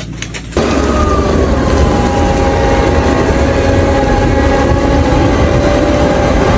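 A loud vehicle running, with a steady whine that slowly drops in pitch over a deep rumble. It starts suddenly about half a second in.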